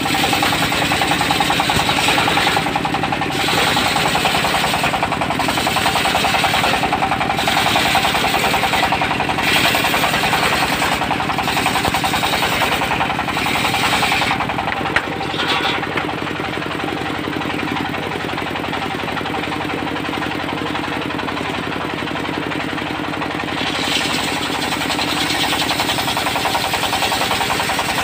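Diesel engine of a portable circular sawmill running steadily under load. The high saw noise above it swells and dips about every two seconds through the first half, then eases for several seconds before picking up again.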